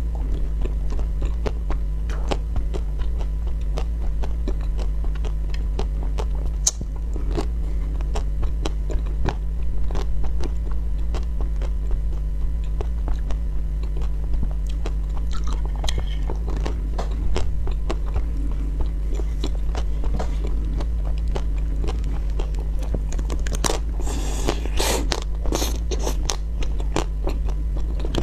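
Crunching and chewing of frozen homemade ice cream: small ice cream cubes and a pink-coated ice cream bar bitten and chewed, with many sharp crunches and a run of louder crunches near the end. A steady low hum lies underneath.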